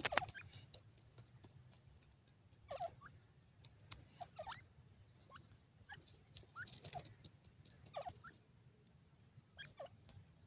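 Grey francolins giving soft, short downward-sliding chirps every second or two, the loudest right at the start, with faint clicks between them.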